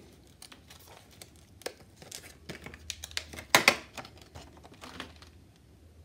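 Crinkling and clicking of the plastic packaging holding a new Crucial DDR4 SODIMM memory module as it is handled, with a sharper crackle about three and a half seconds in.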